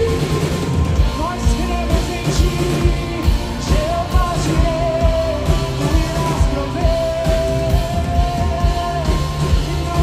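Live band performing a worship song: a male lead singer with backing singers over electric guitars, bass and drums, the singer holding long notes through the middle.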